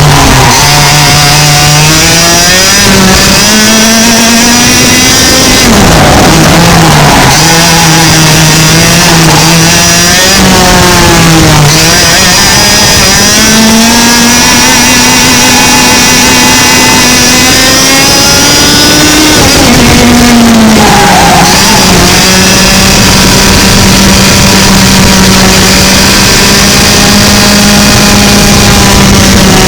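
A 100cc two-stroke kart engine at full throttle, its pitch climbing steadily along the straights. It drops sharply about four times as the kart brakes for corners, then winds up again.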